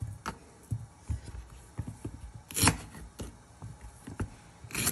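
Kitchen knife knocking on a bamboo cutting board as plantain is sliced and the slices are gathered up: a handful of irregular knocks, the loudest about halfway and near the end.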